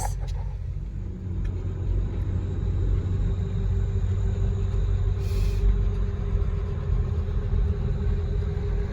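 Vehicle cabin noise while driving: a steady low engine and road rumble, growing a little louder after a couple of seconds, with a steady hum coming in about three seconds in.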